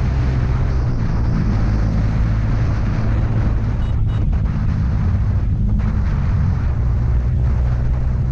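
Bajaj Pulsar NS200 single-cylinder engine running steadily while riding, with wind buffeting the microphone.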